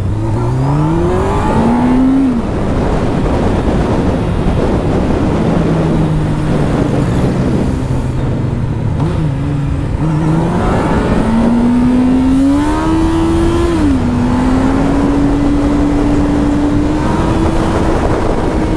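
Honda Hornet motorcycle engine on its stock, quiet exhaust, pulling through the gears. Its pitch climbs and drops at a shift about two seconds in, holds steady, then climbs again and drops at another shift near fourteen seconds. Heavy wind noise on the microphone runs under it.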